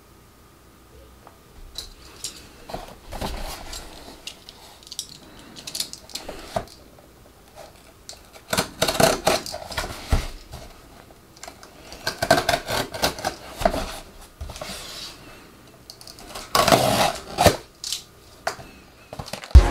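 Cardboard shipping box being handled and cut open with a snap-off utility knife along its packing tape: scrapes, slicing and knocks on the cardboard in irregular bursts, starting about two seconds in and loudest in the second half.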